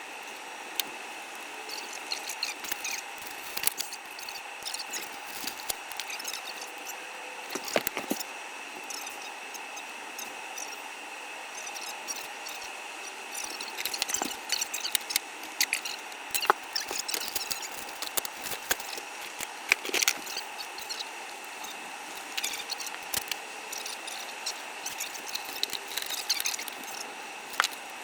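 Irregular small clicks, knocks and rattles over a steady hum: the sounds of hands-on work with tools and cabling.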